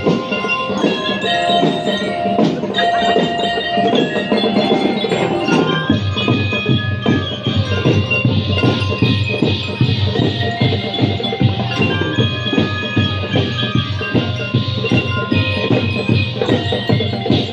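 School drum and lyre corps playing: metal bell lyres carry a ringing melody over snare and bass drums. The drumming comes in more strongly about six seconds in.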